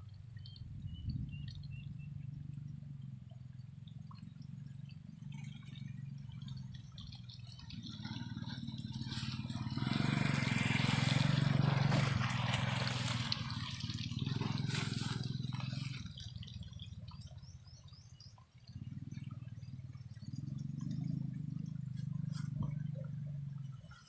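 Motorbike engine running steadily at low revs, with a loud rushing noise that swells up about a third of the way in, peaks near the middle and dies away.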